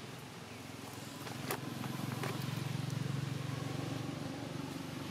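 Low engine drone of a vehicle passing at a distance, swelling from about a second in and easing off near the end, with a couple of faint clicks over it.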